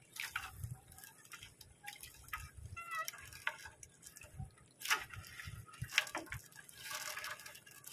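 Water dripping and splashing off a wet fishing net as it is hauled into a small boat, with scattered short clicks and knocks.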